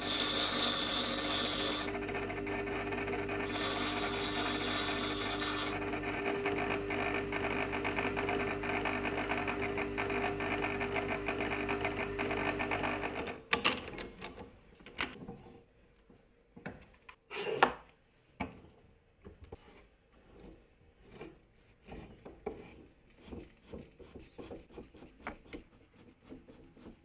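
Bench grinder running with a steady motor hum as the end of a steel threaded bolt is ground on the wheel, the grinding hiss swelling in two spells during the first six seconds. About halfway through it stops abruptly. Then come scattered clicks and knocks as the bolt is fitted into a drill press chuck and tightened.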